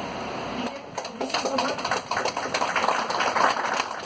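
A small group applauding, starting about a second in and building to a dense patter of many hands clapping.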